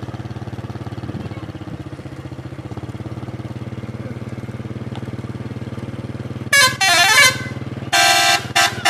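A bus engine idling steadily, then about two-thirds of the way in a telolet horn plays: a run of notes sliding up and down, then a held multi-note chord and a short toot near the end.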